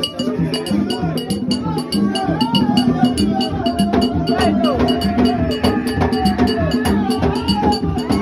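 Percussion music with drums and a sharp clacking beat keeping a fast, steady rhythm, with voices singing over it.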